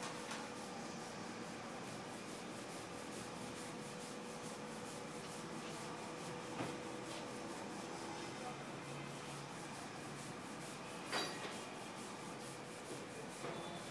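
Steady rubbing and handling noise as the rubber seal is worked along the bare windshield frame, with a faint regular flutter; a sharp click about eleven seconds in.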